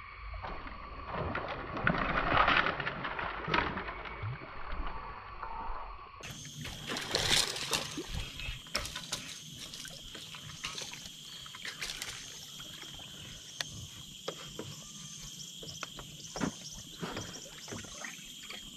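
Water splashing and sloshing, loudest a couple of seconds in, as a hooked toman (giant snakehead) thrashes near the surface while it is brought in. In the second part a steady high insect drone runs under scattered sharp clicks and small splashes.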